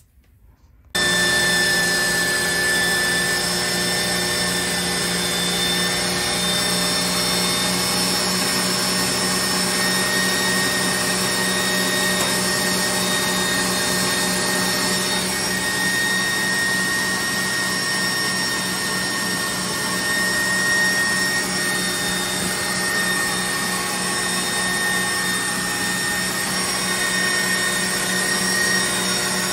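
KitchenAid stand mixer motor starting up suddenly about a second in and then running steadily with a whine, driving the pasta press attachment as it extrudes pasta.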